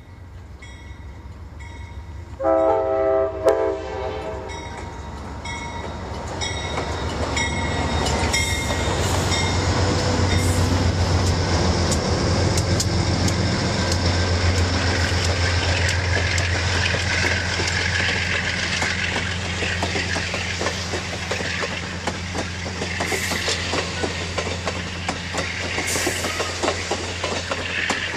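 Amtrak passenger train passing slowly and close by: a short blast of the lead GE P42's K5LA five-chime air horn about two and a half seconds in, then the locomotives' diesel engines grow louder and go by. The double-deck Superliner cars follow with a steady clickety-clack of wheels over rail joints.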